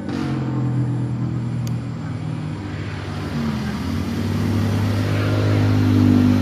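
Motor vehicle engine running, its pitch shifting about halfway through and getting louder near the end.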